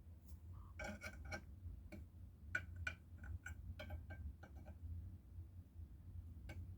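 Faint, irregular small clicks and light taps, a few clustered together, over a steady low hum.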